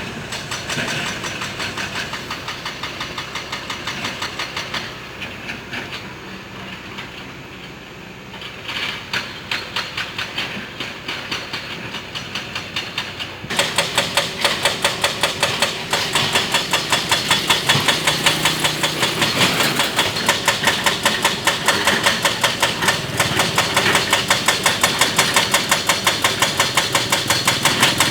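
Excavator's diesel engine running with an even, rhythmic clatter of about three to four pulses a second, jumping suddenly louder about halfway through.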